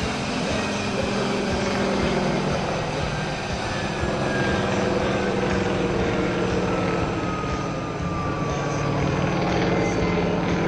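Aircraft engine noise, most like a helicopter: a steady drone with a high whine that falls slowly in pitch over several seconds.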